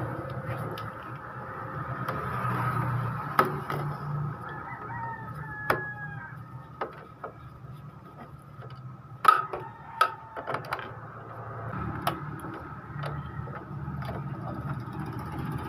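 A rooster crowing in the background, its calls gliding in pitch about five seconds in and again near ten seconds. Scattered sharp clicks and knocks come from handling the opened printer's parts, the loudest about nine seconds in.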